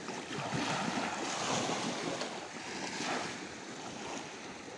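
Sea surf washing onto the shore in gentle swells, with wind buffeting the microphone.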